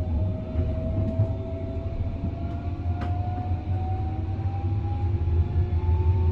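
Stuttgart U2 Stadtbahn light-rail train running through a tunnel, heard from inside the front car: a steady low rumble of wheels on rails, with an electric whine rising slowly and evenly in pitch as the train gathers speed.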